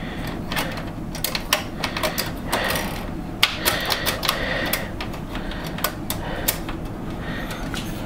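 Steel expansion-slot covers being fitted back into the slot bracket of a Dell OptiPlex 790 case: a run of irregular light metal clicks and taps. Two short stretches of metal scraping on metal come in the middle.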